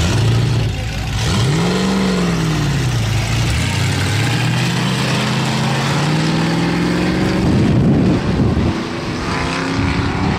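Classic muscle car engines accelerating as the cars pull away down the street: one rev swells and falls back about two seconds in, then the engine pitch climbs steadily for several seconds, loudest near the end.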